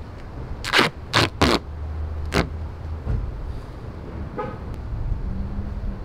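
Duct tape pulled off the roll in four short rips within the first two and a half seconds, over a low steady hum.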